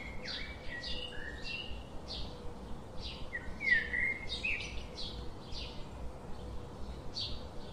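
Small birds chirping: short high chirps repeating about twice a second, with a few longer whistled notes, the loudest about four seconds in.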